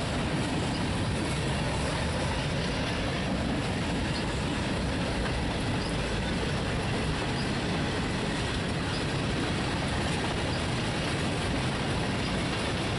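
Freight train's covered hopper cars rolling past: a steady, unbroken noise of steel wheels running on the rails.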